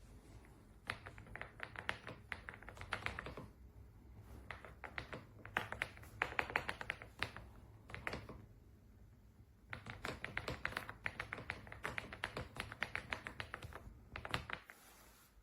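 Typing on an AULA F99 mechanical keyboard: fast runs of key clacks in three bursts with short pauses between them.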